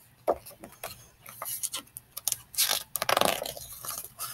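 Hardcover picture book being opened and its pages turned by hand: several papery swishes with small clicks and taps in between, the longest swish about three seconds in.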